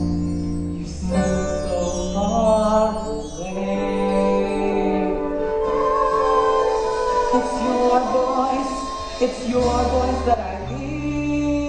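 A slow song from a stage musical: a voice singing long, held notes over instrumental accompaniment.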